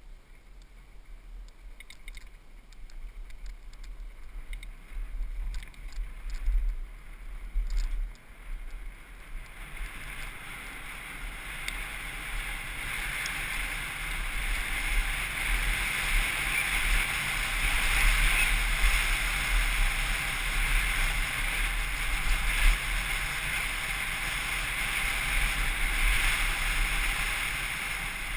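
Wind rushing over a helmet-mounted camera and knobby tyres rolling over a dirt track on a descending mountain bike, with short knocks and rattles over the first eight seconds or so. The rush grows louder and steadier from about ten seconds in as the bike picks up speed.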